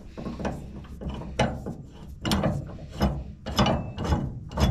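Socket ratchet clicking in repeated back-and-forth strokes as the bolts of a spare tire mount are tightened down.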